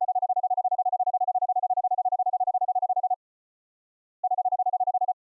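Morse code audio tone from a CW keyer: a single mid-pitched tone keyed in a rapid, even run of dots, about a dozen a second. It stops a little past halfway, and a shorter run of dots comes near the end.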